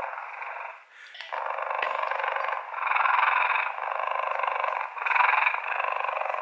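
Recorded cheetah purr played from the sound unit of a stuffed toy cheetah. A fast pulsing buzz, thin and without bass, swells and eases about once a second with each breath, with a short break about a second in.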